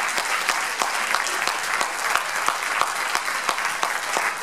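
Audience applauding: many hands clapping steadily in a dense patter.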